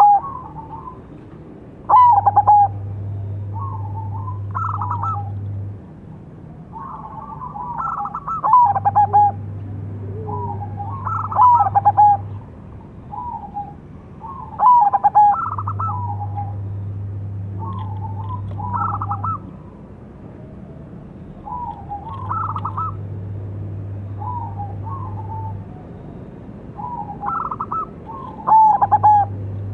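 Zebra dove (perkutut) cooing its rhythmic, broken call phrases, a new phrase every three to four seconds. A low steady hum comes and goes underneath.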